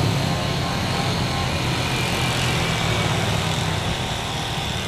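Jet airliner engines running steadily: a low rumble under a thin high whine, easing slightly near the end.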